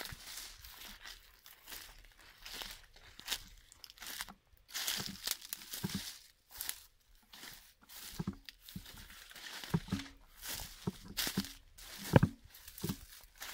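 Irregular crunching and rustling of leaves, with a few dull thumps in the second half, the loudest near the end.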